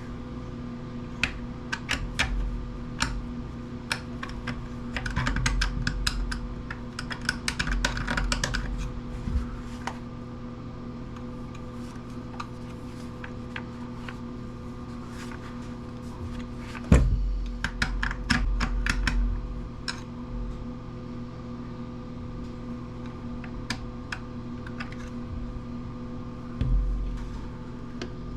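Hand tools and the plastic planer housing being handled while working at a screw: scattered light clicks and taps, with a few heavier bumps, the loudest about seventeen seconds in, over a steady hum.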